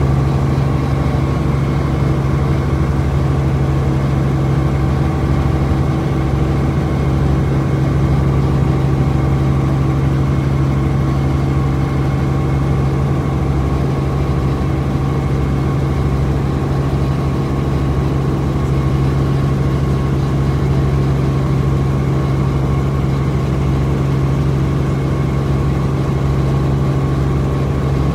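Helicopter engine and rotor heard from inside the cabin, a loud steady hum with a strong low drone, running unchanged as the helicopter climbs after take-off.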